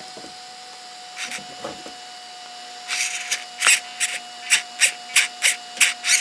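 Steering servo of a Feiyue FY06 RC truck buzzing in short bursts, a couple at first and then about three a second, as the steering is worked back and forth. The steering is struggling to turn the wheels, a binding the owner believes is in the aluminium steering parts. A faint steady whine runs underneath.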